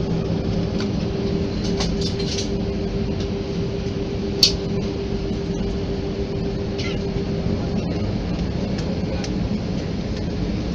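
Jet airliner cabin noise: the engines run at a steady hum, heard from inside the cabin, with one sharp click about four seconds in.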